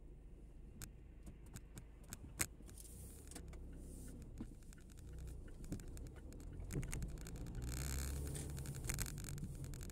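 Road noise inside a moving car: a steady low rumble of engine and tyres, growing louder in the second half, with many small clicks and rattles throughout. One sharper click comes about two and a half seconds in, and a short hiss comes near the end.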